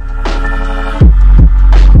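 Background electronic music: deep kick-drum beats under held synth chords, with a sharp snare-like hit twice.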